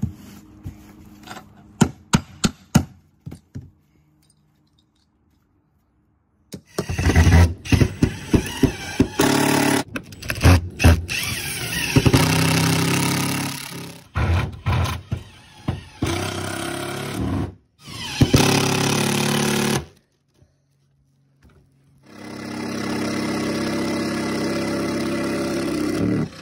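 A hammer strikes a few times on foam roof insulation board. Then a cordless driver runs in several short runs and one longer steady run near the end, driving screws through round insulation plates into the roof deck.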